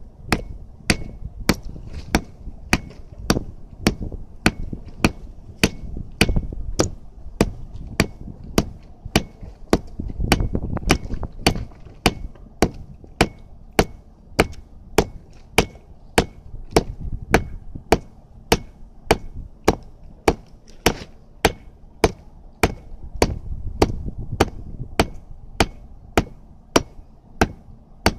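Hammer blows driving a wooden board down into the ground beside a post, a steady, even rhythm of about two strikes a second, each a sharp knock with a faint short ring.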